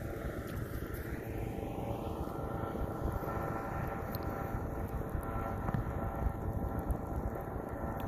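Steady distant engine drone with a faint steady whine, over low wind rumble on the microphone.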